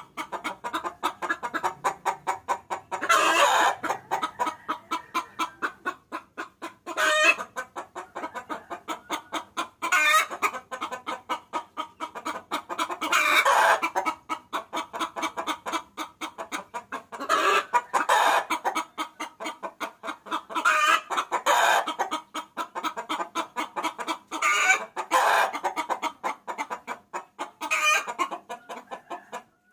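A hen chicken cackling: a fast run of short clucks, broken every few seconds by a louder, drawn-out call. It is a hen's call used as a lure to bring roosters in.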